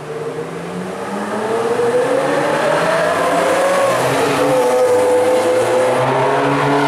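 Ferrari F355 Spider's 3.5-litre V8 accelerating away, its note rising and growing louder through one gear. It drops at an upshift about four seconds in, then pulls on at a steady pitch.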